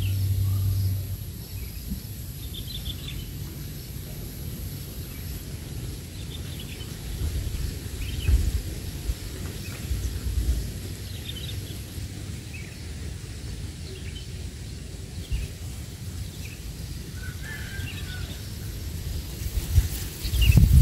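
Outdoor rural ambience: scattered short bird chirps over a low, uneven rumble, with a faint steady high tone and a few louder thumps near the end.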